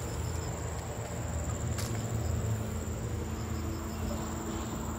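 Steady high-pitched insect chorus from the forest, over a low rumble, with a single sharp click about two seconds in.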